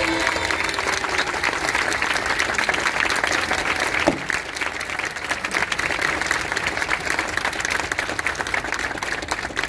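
Audience applauding, with one sharp knock about four seconds in.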